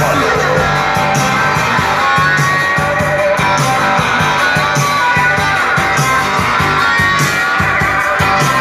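Loud dance music with guitar over a steady beat of about two strokes a second, played through a large sound system's speaker stacks.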